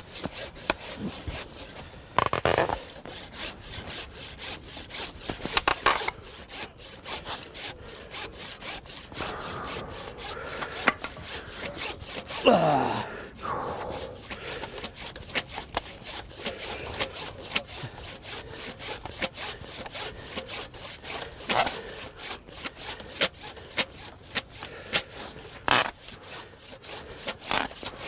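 Hand pruning saw cutting through a thin tree stem, worked in quick, steady back-and-forth strokes with short pauses. About halfway through, one brief louder sound falls sharply in pitch.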